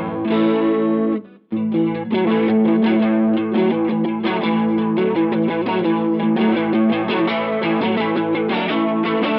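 Electric guitar played through a Mooer Ensemble King chorus pedal. A ringing chord is cut short about a second in, then after a brief gap the chords are strummed again in a steady rhythm with a warbling chorus on them.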